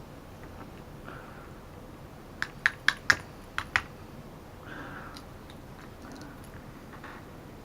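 Small parts of a Mobius action camera being handled on the bench. About two and a half seconds in comes a quick run of six small, sharp clicks, like hard plastic or tiny metal pieces tapped together, with soft rustling on either side.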